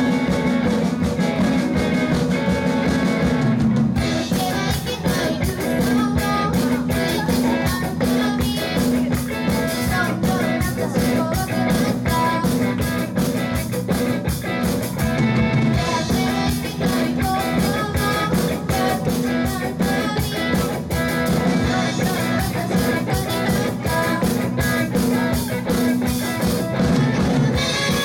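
Live rock band playing a song with electric guitar and drum kit; the drums open up with full cymbals about four seconds in.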